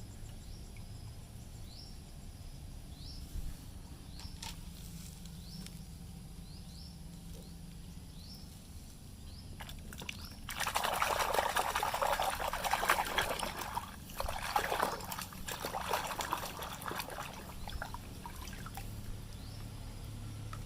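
Water pouring and splashing over a muddy toy wheel loader as it is rinsed, starting about halfway through, then coming in shorter uneven bursts that die away. Before it, faint short chirps repeat at a steady pace.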